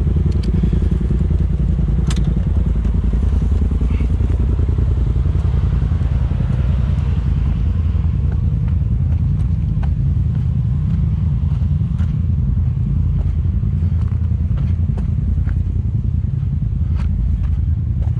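Polaris RZR Turbo S side-by-side's engine idling steadily, with scattered light clicks and crunches of footsteps on dirt and loose rock.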